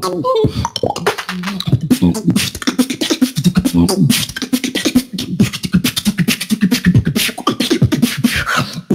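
A beatboxer performing a solo battle round: a dense run of vocal kick and snare clicks mixed with short hummed bass tones, with a sweeping vocal glide near the end.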